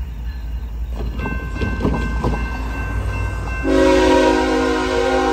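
CSX ES44AH locomotive's air horn sounds a chord of several notes, starting a little past halfway through and still sounding at the end. It plays over a railroad crossing bell that begins ringing about a second in, with a low rumble from the approaching locomotive underneath.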